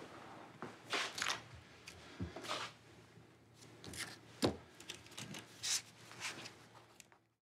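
Light clicks, taps and paper rustles of small electronic parts and papers being handled on a desk, over a faint low hum, with one sharper click about four and a half seconds in. The sound cuts off abruptly near the end.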